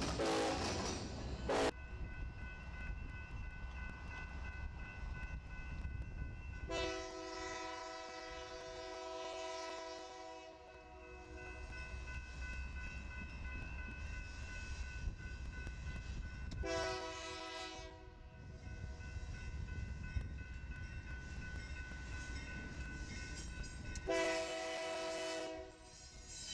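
Union Pacific diesel locomotive's air horn sounding for a grade crossing: a long blast about seven seconds in, a short one around seventeen seconds and another near the end, over the low rumble of the approaching train. A crossing bell rings steadily underneath. A different train's horn is heard at the very start and cuts off abruptly.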